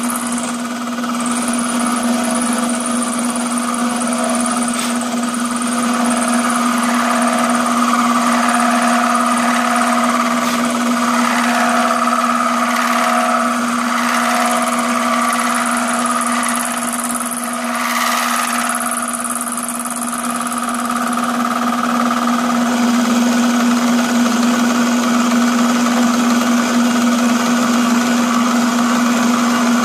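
Milling machine running steadily while its 1/2-inch cutter takes a pass along the edge of a metal part, rounding it over. The cutting noise swells and shifts in the middle, loudest a little past halfway, over a constant motor hum.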